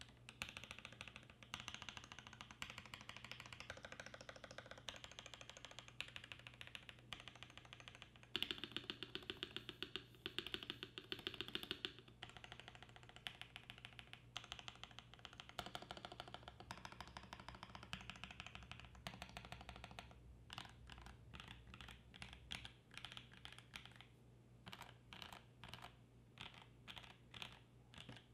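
Rama U80-A mechanical keyboard with lubed Creamcicle switches on a brass plate and GMK keycaps, typed on fast. The keystrokes come thickest and loudest about a third of the way in, then thin out to separate strokes, a few a second, in the last third.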